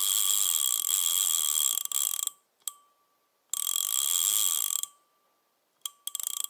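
Rapid mechanical whirring and clicking with a steady high ring, as an intro sound effect. It runs in stretches: it stops about two seconds in, comes back for about a second near the middle, and gives a few single clicks near the end.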